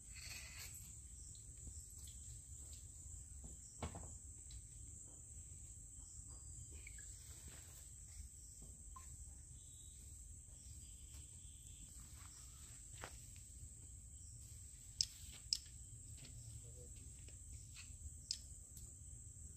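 Insects chirring steadily at a high pitch, with a few sharp clicks and taps scattered through; the two loudest come close together about three-quarters of the way in.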